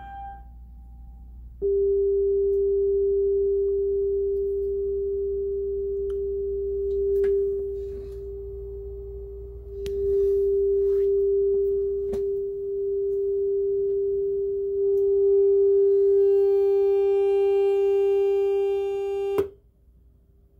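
Steady sine-wave test tone from a bench signal generator, played through the Marantz 2238B receiver under test. It starts a couple of seconds in and wavers slightly in loudness. About three-quarters of the way through it grows a little louder and harsher, then cuts off abruptly with a click.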